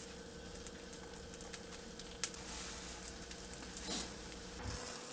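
Metal fork tapping and scraping against a frying pan while spreading soft toppings, a few scattered light clicks with the sharpest about two and four seconds in, over a faint steady hum.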